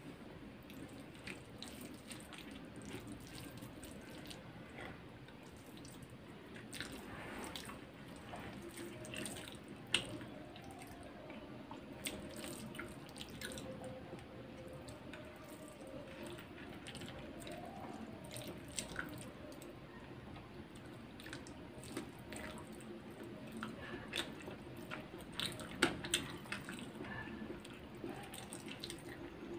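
Close-up eating sounds of chicken biryani eaten by hand: fingers picking rice and chicken from the tray and mouth chewing, a steady run of small clicks and smacks, with a few louder ones about ten seconds in and near the end.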